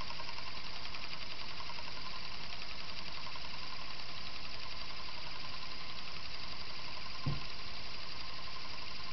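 Chrome-plated steel Euler's Disk spinning and rolling on its concave mirror base, making a steady whirring hum with a rapid flutter. A brief low thump about seven seconds in.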